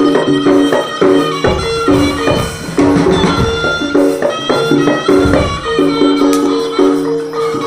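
Jaranan ensemble music from East Java: drums beating under short, repeating pitched gong notes in a steady rhythm, with heavier drum strokes through the middle.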